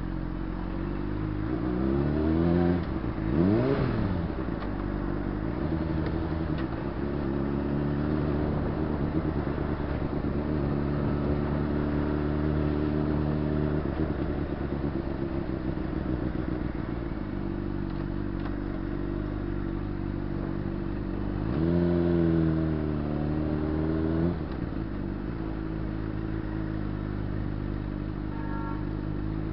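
Honda CBR600RR's inline-four engine running at low road speed, heard from the rider's position. Its revs rise and drop quickly about three seconds in, and climb again around twenty-two seconds before cutting back sharply about two seconds later.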